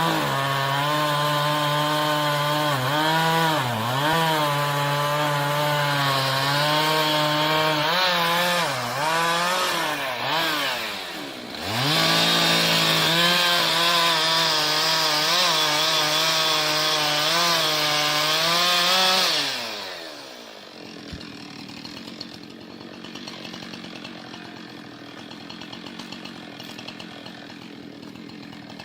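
Chainsaw engine running at high revs while cutting wood, its pitch sagging under load several times and dropping sharply about a third of the way through before picking up again. About two-thirds of the way in the engine winds down and the saw goes quiet, leaving a faint background.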